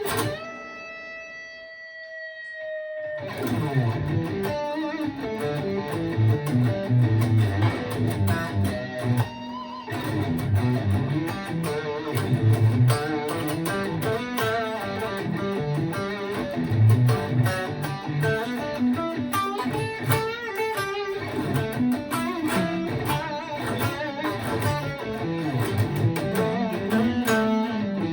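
Gibson ES-335 electric guitar played through an amp: a single held note rings and fades for about the first three seconds, then a busy run of quickly changing notes follows.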